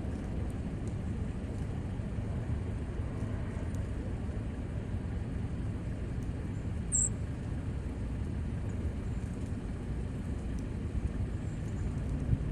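Steady low outdoor rumble, like distant traffic, with one short high chirp about seven seconds in.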